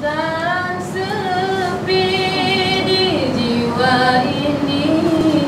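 A girl singing a slow melody into a microphone, holding long notes and sliding between them.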